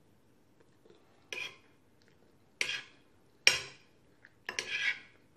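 Eating utensil clinking against a plate of food about four times, the loudest in the middle and the last a longer scrape.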